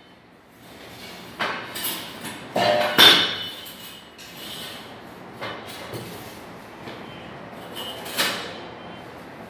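Irregular knocks and clinks of sofa frame parts being handled and fitted together during assembly, the loudest about three seconds in.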